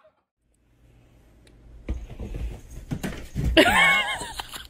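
A cat's long, wavering yowl a little past the middle, its pitch swooping down and back up, over rustling and handling noise.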